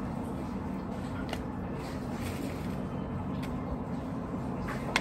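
Steady low background hum, with a few faint, short clicks.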